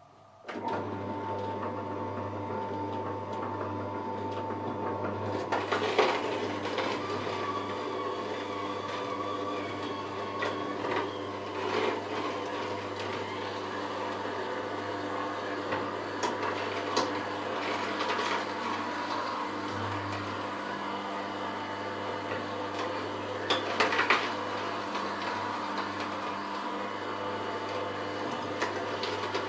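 Hurom H2Y slow juicer switching on about half a second in and running steadily with a low hum, its auger crushing hard carrot pieces with several sharp cracks and crunches.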